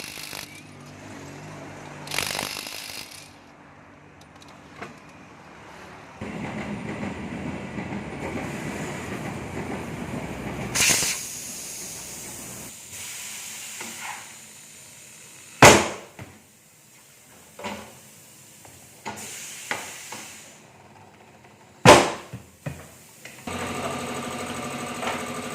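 Tyre repair work: short hissing blasts of compressed air, then a longer stretch of hissing noise. About halfway through and again near the end come two sharp loud knocks, with a few lighter knocks between them, and a motor starts running steadily just before the end.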